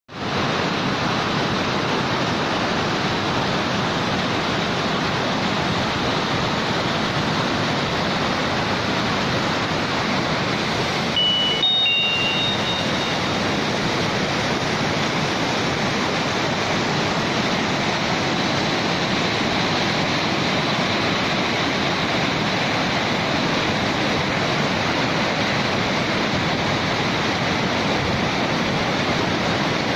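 Steady rushing of floodwater flowing fast, an even roar with no break. A couple of brief high tones sound about twelve seconds in.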